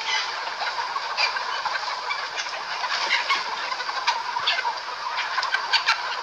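A large flock of native chickens, roosters and hens, clucking and calling all at once: a constant din of many overlapping short calls.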